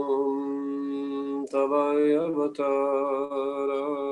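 A man slowly chanting a Bengali Vaishnava devotional prayer in long held, drawn-out notes, with brief breaks about a second and a half and two and a half seconds in.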